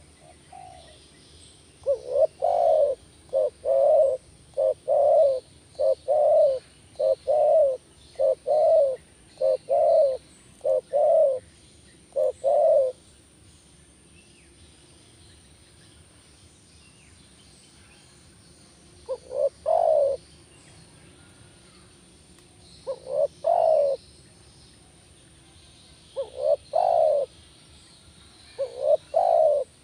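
Spotted dove cooing: about nine low coo phrases in quick succession, then after a pause of several seconds, single coo phrases every few seconds.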